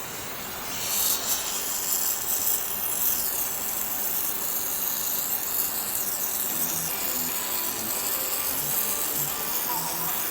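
Steady hissing of a gas torch flame, starting about a second in, as it preheats an aluminium engine block to around 200 °C before welding to reduce the risk of cracking.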